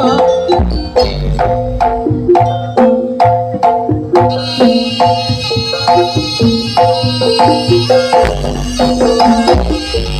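Live jaranan gamelan music: tuned mallet instruments strike a quick repeating pattern over hand-drum beats. A sustained higher melody joins about four seconds in.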